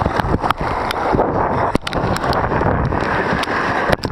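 Wind buffeting a handheld camera's microphone over the wash of breaking surf, broken by many brief crackles and dropouts as the camera is jostled.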